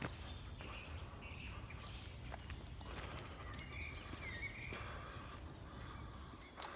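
Several wild birds singing and chirping in a dawn chorus, a scatter of short high whistles and trills over a steady low rumble.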